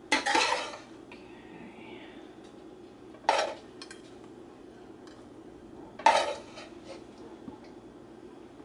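A spoon scraping and clinking against a metal skillet three times, about three seconds apart, as cooked ground beef is scooped out.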